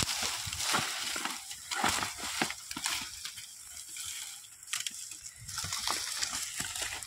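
Dry twigs and branches crackling and snapping, with hooves scuffing in sandy ground, as two white zebu bulls lock horns and shove in dry brush; the crackles come irregularly.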